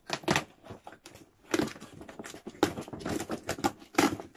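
Cardboard shipping box being torn open by hand: the flaps rip and scrape, and the cardboard crinkles in irregular bursts, with a few louder tears.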